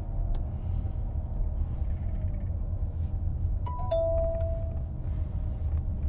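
Two-note falling chime from the robotaxi's cabin speaker about four seconds in: a short high note, then a lower note held for about a second. Under it runs the steady low rumble of road noise inside the moving Chrysler Pacifica minivan.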